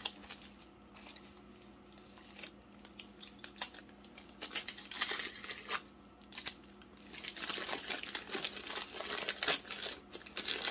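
Tape being peeled and packing paper crinkling as a wrapped jar is unpacked: irregular crackles and tearing sounds, sparse at first and much busier in the second half.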